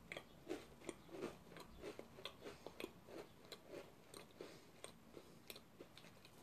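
A person chewing a crisp green onion thin cracker: faint, repeated crunches, about three a second.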